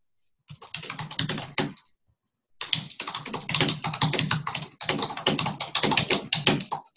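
Fast typing on a computer keyboard: a short burst of keystrokes, a pause of under a second, then a long unbroken run of rapid keystrokes.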